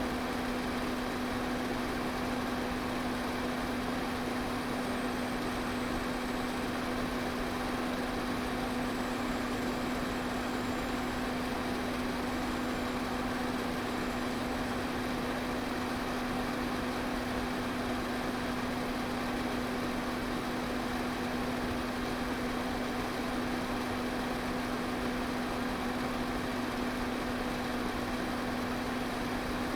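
Pedestal fan running steadily: an even whoosh of moving air with a steady motor hum underneath.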